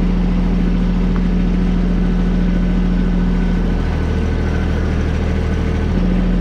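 Engine running steadily. Its note drops lower for about two seconds past the middle, then comes back up.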